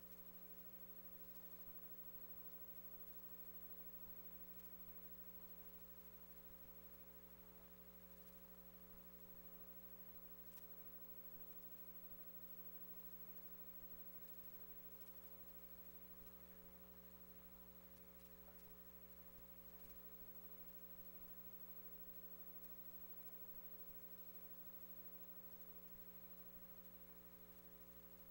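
Near silence: a steady electrical mains hum, with faint scattered ticks.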